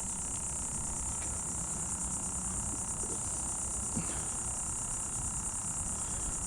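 Insects chirring in a steady, high-pitched chorus without a break.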